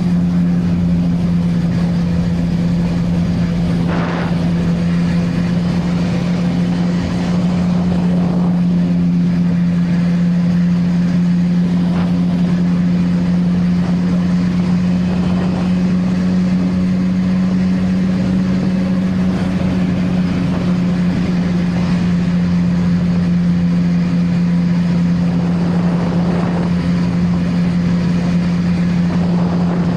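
CFMOTO 675NK inline-three engine with its stock exhaust, running at a steady pitch while riding.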